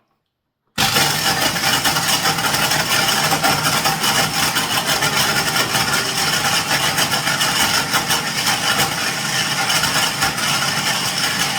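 Small blender motor running at full speed, grinding roasted cashews and chunks of Parmesan into a coarse crumb. It starts abruptly about a second in and runs loud and steady.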